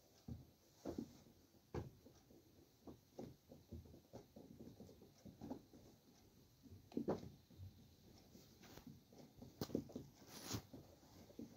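Faint, irregular soft pats and knocks of hands pressing and shaping dough rounds, with a thin wooden rolling pin working on a cloth spread over the floor.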